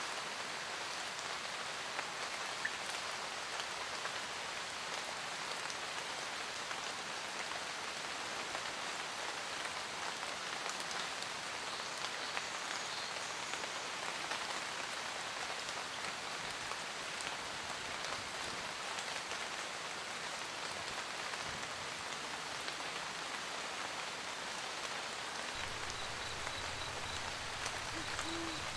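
Steady rain pattering on a roof. Near the end a low rumble comes in, and an owl hoots once.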